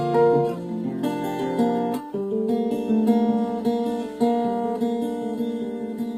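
Acoustic guitar strumming chords without singing, changing chord about two seconds in.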